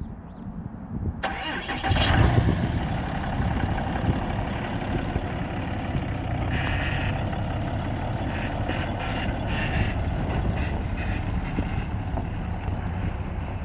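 2008 Dodge Ram 2500 pickup's engine starting about a second in, then idling steadily.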